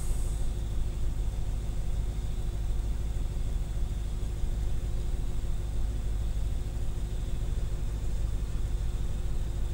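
1995 Chevrolet Impala SS's 5.7-litre LT1 V8 idling steadily at about 850 to 880 rpm, a low even rumble.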